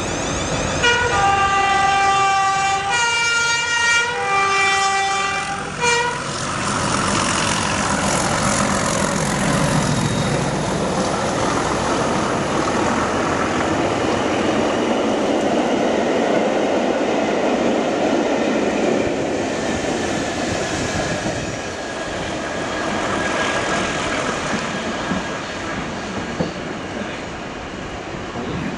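A diesel locomotive's two-tone horn sounding several alternating blasts, then the train running past loudly, with engine noise and the rumble and clatter of its wheels continuing to the end.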